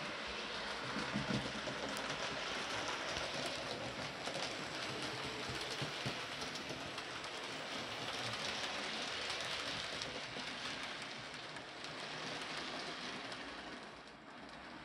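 Model BR Britannia Class steam locomotive and its coaches running along a model railway track: a steady rushing rattle of wheels on rail and motor, easing off a little near the end.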